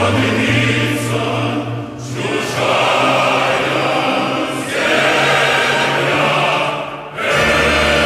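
Choral music: a choir singing long held chords over a sustained low note, in phrases that break off and begin again about every two to three seconds.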